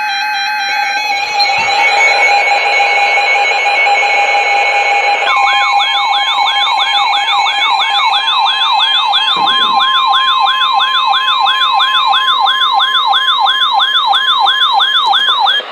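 Weather radio alert: a steady tone over hiss. About five seconds in, a siren-like alarm starts, sweeping up and down about two and a half times a second over a steady high tone, which signals the start of a severe thunderstorm warning.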